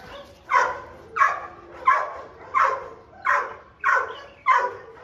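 A dog barking steadily and rhythmically, about seven barks in a row, one roughly every two-thirds of a second.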